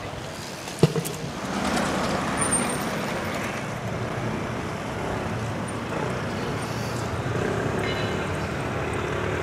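City street traffic noise: a steady rush of passing cars, with a single sharp click about a second in.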